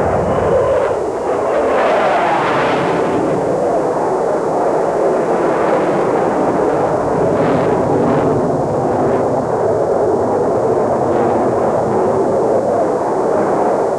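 Jet aircraft in flight: a steady rushing engine and air noise that swells briefly about two seconds in and again about eight seconds in.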